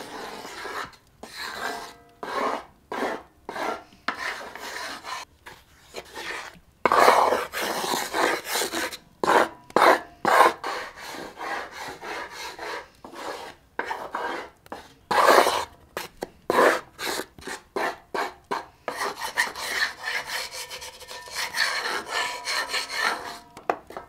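Wooden spoon stirring dry flour in a large metal pan, scraping along the pan in repeated rasping strokes, roughly one or two a second.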